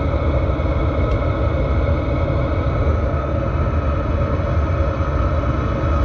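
Chinese-made parked diesel heater running shortly after start-up, heard at its exhaust outlet under the van: a steady rumble of burner and combustion fan with a faint steady whine over it, while it smokes as unburnt diesel burns off before it gets hot.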